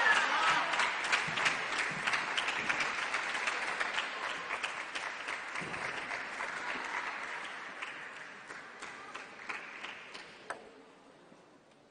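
Applause with many individual claps, loud at first and dying away over about ten seconds, following a won point in a table tennis match.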